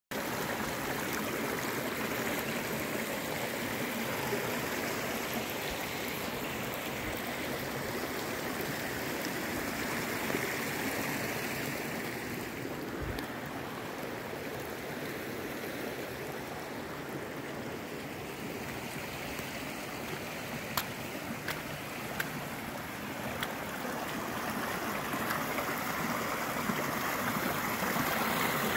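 Fast-flowing forest stream rushing over rocks in a steady wash of water noise, easing somewhat midway and growing louder again near the end. A few sharp ticks in the second half.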